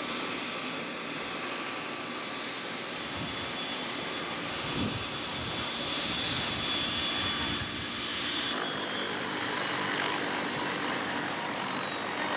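News helicopter running as a steady noise. After a cut a few seconds before the end, a high whine slowly falls in pitch.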